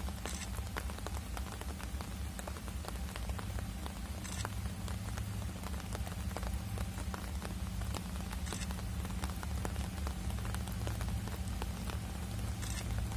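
Rain falling steadily with pattering drops, over a steady low hum from distant approaching GE Dash-9 diesel locomotives that grows slightly louder.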